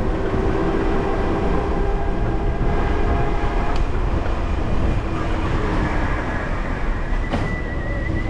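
Wind rumbling on the microphone and street traffic noise while riding an e-bike through the city. A steady hum runs through the first half, and a high, slightly wavering whine comes in near the end.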